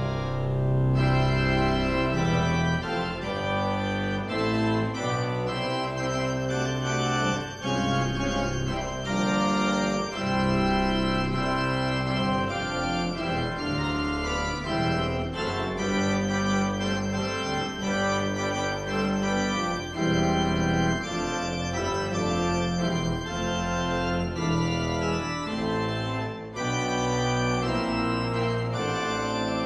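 Church organ played from a three-manual console, with sustained chords over a held bass that change every second or so, as an organ prelude.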